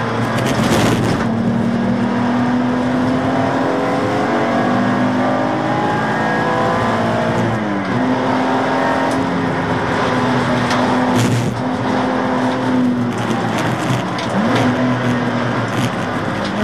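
BMW Z4 Coupe (E86) race car's engine heard from inside the cabin, pulling hard with its pitch rising steadily for several seconds. The pitch drops sharply at a gear change about eight seconds in and climbs again, dips and jumps back up near the end, with a couple of brief thumps along the way.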